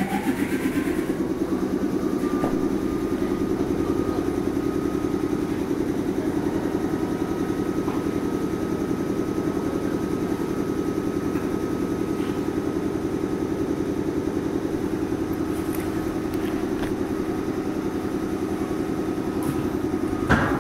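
Onboard sound of a JNR-design 413 series electric train: a steady hum with a fast pulsing beat and a thin whine that rises in pitch over about the first second, then holds level. Near the end a click marks a change in the sound.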